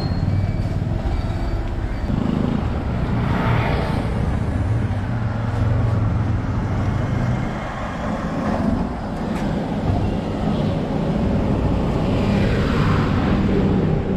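Street traffic with engines running, the rumble continuous; vehicles swell past about three seconds in and again near the end.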